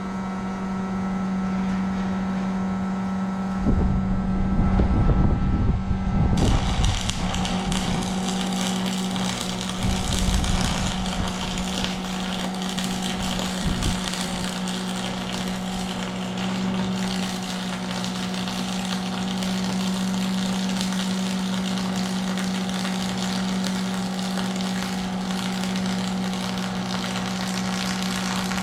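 A steady low electrical hum, with a few knocks of metal being handled; about six seconds in, a welding arc strikes and runs on with a steady hissing crackle as a bead is laid on the steel.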